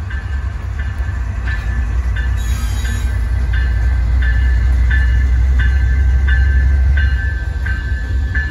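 A pair of CN diesel locomotives rumbling past, loudest in the middle and easing near the end. A bell rings over the rumble, struck about every two-thirds of a second, as is usual for a locomotive making a reverse move.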